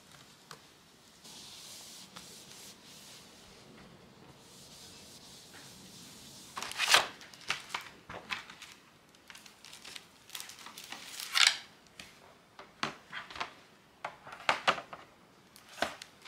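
A cloth rubbing over a laptop's metal body, then sharp clacks and rattles of hard transparent plastic laptop shell cases and their plastic packaging being handled, the loudest about seven and eleven seconds in.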